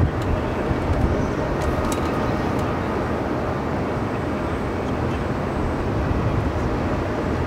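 Boeing 737 Classic's CFM56 jet engines heard from the ground as a loud, steady rumble during the aircraft's departure.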